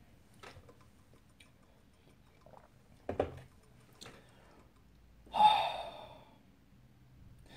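A person's breathing in a quiet small room: a short breath about three seconds in, then a louder sigh falling in pitch a little past five seconds in.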